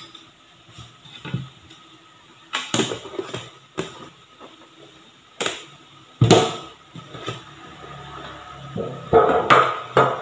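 Metal baking pan and ceramic plate knocking and clattering on a table as a baked cake is turned out of the pan: several sharp knocks, the heaviest a dull thud about six seconds in, and another quick cluster of knocks near the end as the pan is lifted off.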